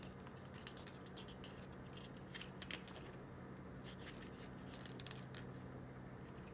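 Faint, scattered small clicks and rustles of hands handling wires and plastic parts, with a few quick clicks together about two and a half seconds in, over a steady low electrical hum.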